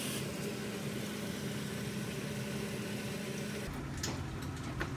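A steady mechanical hum with a low tone under a hiss. Near the end the tone stops, a low rumble comes in, and there are a few light clicks.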